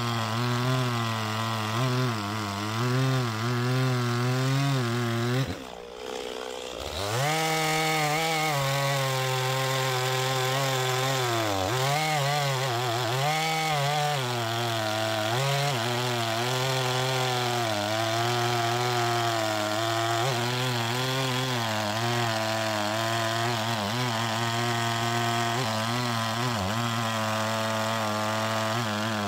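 Two-stroke chainsaw cutting through a log, its engine pitch rising and falling as the chain bites into the wood. About six seconds in the engine briefly drops away, then revs back up and keeps cutting.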